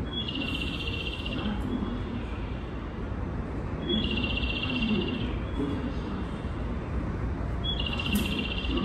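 A platform's recorded bird-chirp guidance sound: a trilling high chirp lasting about a second and a half, repeating three times about every four seconds, over a steady low background hum.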